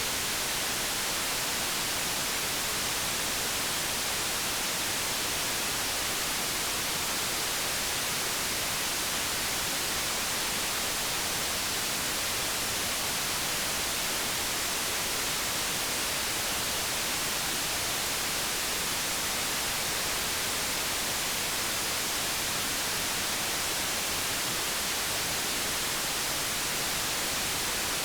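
Steady white noise: an even, unbroken hiss, strongest in the high range, with no changes.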